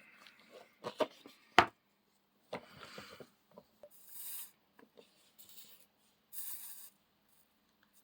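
Small hard objects knocked and set down with a few sharp clicks, the loudest about a second and a half in, then several short bursts of scratchy rubbing or scraping: hands handling parts at a workbench.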